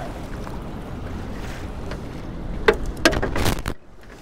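Steady wind and water rush around a small aluminum boat. About two and a half seconds in comes a sharp knock, then a second of scuffling knocks as a baitfish lands and flops on the boat's deck.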